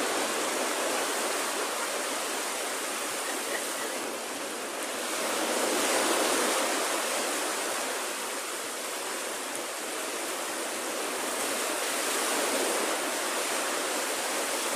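Small waves breaking and washing up on a sandy beach: a steady surf rush that swells about a third of the way in and again near the end.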